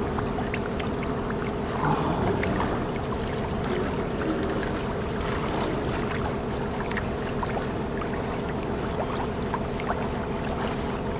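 A boat's motor running steadily on the water, a constant hum at several pitches with small clicks and splashes over it.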